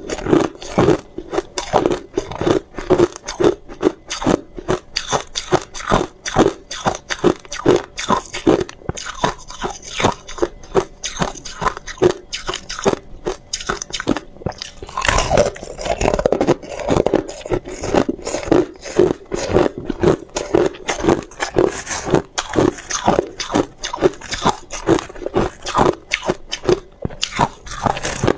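Close-miked biting and chewing of hard crushed ice: a dense run of crunches and cracks, several a second, as frozen chunks are bitten off and ground between the teeth.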